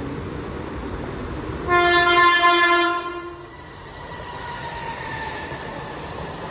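A Mumbai local train's horn sounding one blast of a little over a second, about two seconds in, over the steady rumble of a train.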